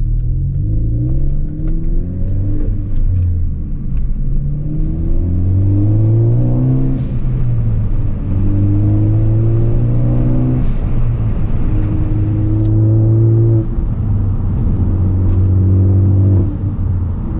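Ford Focus ST's turbocharged four-cylinder engine pulling under moderate boost, with the revs climbing and dropping back several times as it is driven through the gears.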